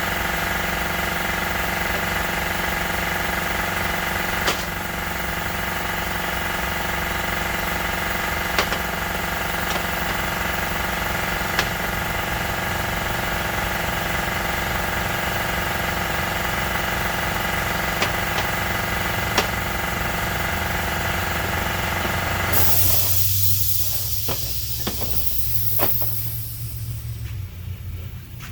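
A shop machine's electric motor runs steadily with a multi-tone hum, with a few sharp knocks now and then. About 22 seconds in it cuts off, followed by a short burst of hissing air and a few light clicks.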